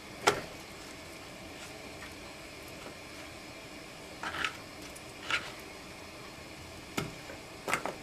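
Asparagus spears being set down and arranged by hand on a plastic cutting board: a handful of light, short taps over faint room noise.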